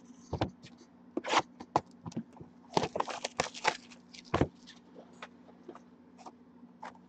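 Cardboard trading card box (2019 Topps Archives Signature Series) being handled by hand. A knock as it is lifted off the stack, a run of crinkling and clicking as its plastic shrink wrap is pulled off, and another knock as it is set down, followed by a few light taps.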